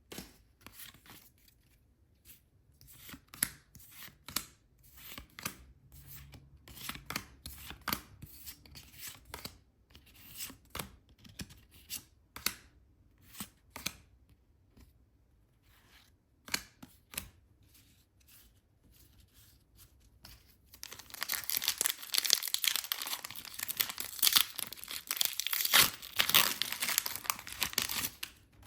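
Packaging being handled with scattered light crinkles and clicks, then, about 21 seconds in, a dense, louder stretch of crinkling and tearing as a wrapper is torn open.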